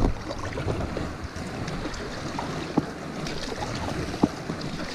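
Water sloshing and splashing around an inflatable stand-up paddleboard being paddled, with wind buffeting the microphone and two short sharp knocks.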